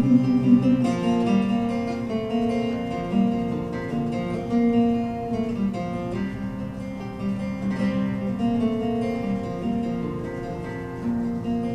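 Steel-string acoustic guitar played solo, notes plucked one after another and left to ring in a slow instrumental passage of a folk ballad; the playing gradually gets softer.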